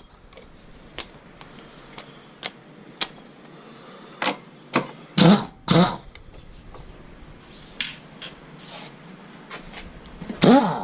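Scattered clicks and knocks of hand tools and sockets on metal parts in a car's engine bay. There are louder short bursts about five and six seconds in and again near the end.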